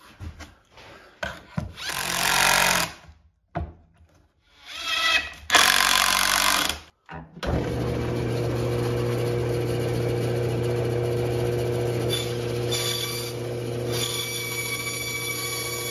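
Two loud bursts of a power tool, each about two seconds long. Then an old Craftsman bandsaw starts running with a steady hum, and near the end its blade cuts into stacked 3/4-inch plywood.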